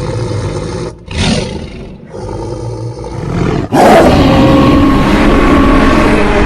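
Animated-creature roar sound effects: a rumbling growl, two shorter calls that rise and fall, then a louder sustained roar with steady tones starting a little under four seconds in.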